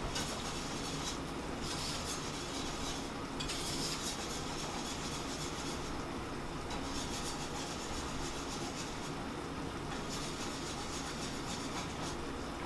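A spoon stirring and scraping thick grits in a pot as cheddar cheese is mixed in, over a steady background hum.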